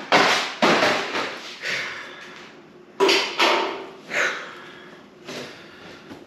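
A series of about seven sudden clatters and rustles, each dying away within about half a second.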